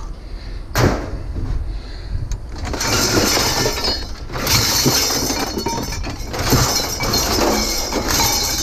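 Hard objects clattering and crashing against each other. There is one sharp knock about a second in, then several seconds of continuous rattling clatter in three stretches.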